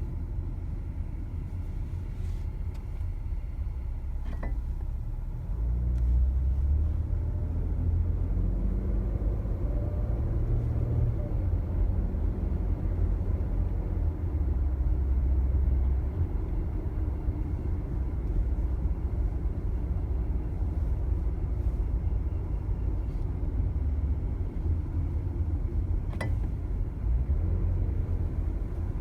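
2016 Jeep Cherokee running with a steady low rumble that gets louder about five seconds in. Two short sharp knocks sound, one about four seconds in and one near the end, of the kind the owner reports as a knocking clunk when the foot comes off the brake.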